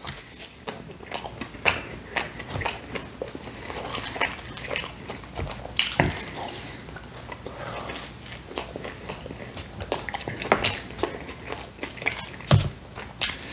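A person biting into and chewing pizza and crust: irregular wet mouth clicks and crunches, with a few louder crackles scattered through.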